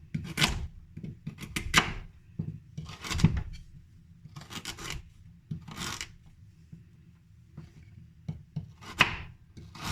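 Repeated short scraping strokes, about one every second and a half, then a pause with small ticks and one more stroke near the end.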